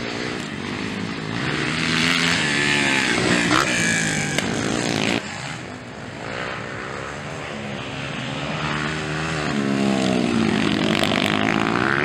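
230cc four-stroke dirt bike engine revving up and down over a motocross track, its pitch rising and falling with the throttle. The sound cuts off abruptly about five seconds in and picks up again with another run of revving.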